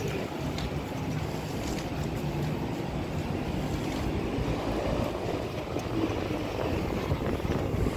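Steady street traffic rumble with wind on the microphone.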